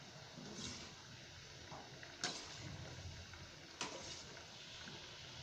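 Moong dal kachoris deep-frying in oil on a low flame, a faint steady sizzle, with a steel slotted spoon clinking sharply against the steel kadai twice, a little after two seconds in and near four seconds.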